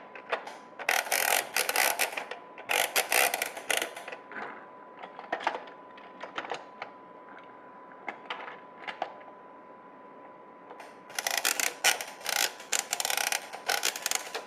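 Die-cast Tomica toy cars clicking and rattling along the plastic ramps of a toy garage case, in two long bursts of rapid clicks, the first about a second in and the second near the end, with single clicks in between.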